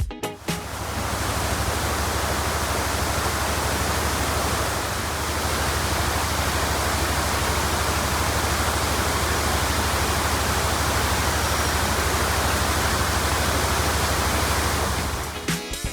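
Waterfall: a steady, loud rush of falling water with a deep rumble underneath, fading in just after the start and fading out shortly before the end.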